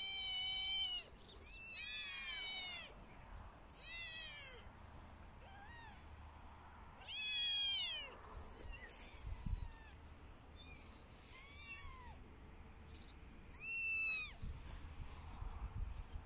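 Young kittens mewing: about six high-pitched cries, each under a second and rising then falling in pitch, with a couple of fainter ones in between.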